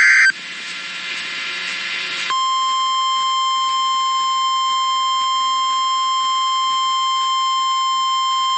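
The last moment of a SAME header data burst, then about two seconds of radio hiss, then NOAA Weather Radio's steady 1050 Hz warning alarm tone, the signal that a weather warning is about to be broadcast.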